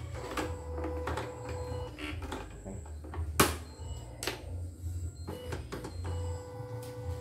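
Plastic embroidery hoop being handled and clicked into the carriage arm of a CNY E900 embroidery machine: light knocks and scrapes, with one sharp loud click about three and a half seconds in and another about a second later. A faint steady hum runs underneath.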